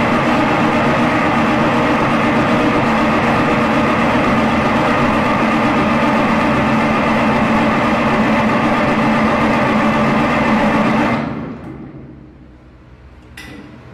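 Cummins 855 inline-six marine diesel being cranked over on its starter at a steady speed without firing, then winding down and stopping about eleven seconds in. It will not catch because no fuel is reaching the injectors from the PT fuel pump.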